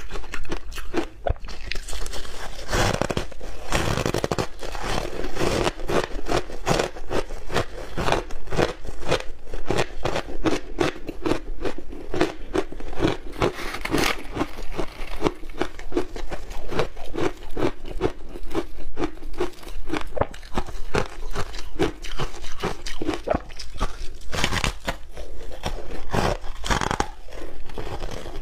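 Close-miked crunching and chewing of packed frozen shaved ice: a steady run of crisp crunches several a second, with a few louder bites.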